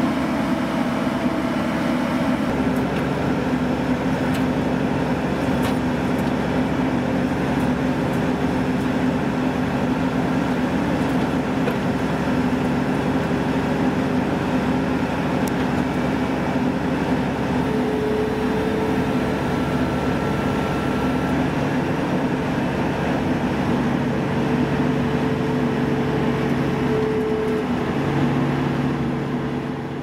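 CLAAS Lexion 570 combine harvester's engine running steadily while the machine stands still, a constant mechanical hum that fades out near the end.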